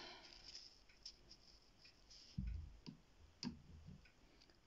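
Near silence with a few faint scattered clicks and soft knocks: a paintbrush and watercolour paints being handled on the table.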